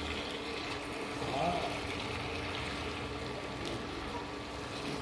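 Palak chicken curry sizzling steadily in the pot while a silicone spatula stirs through it, with a faint steady hum underneath.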